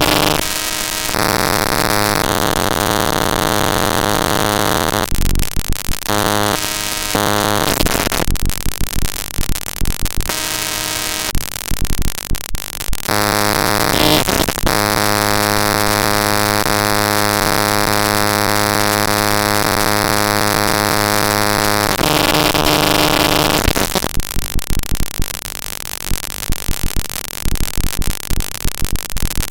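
Raw network-capture text data played as audio samples: harsh digital noise that switches abruptly between buzzing droning tones with many fixed overtones and stretches of hissing, crackling static every few seconds.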